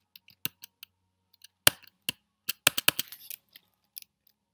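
Computer keyboard keys being typed slowly and unevenly as a terminal command is entered: single key clicks with gaps between them, and a quicker run of several keystrokes a little past halfway.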